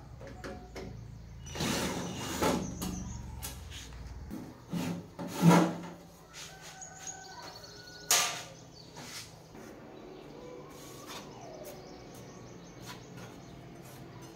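Scattered clicks and knocks, the loudest two about five and a half and eight seconds in, with faint bird chirps in the background.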